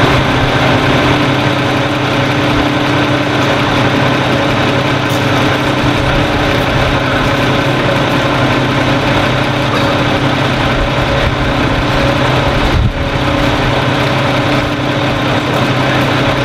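Crane engine running steadily at a constant pitch while it lifts a wooden ship's frame into place.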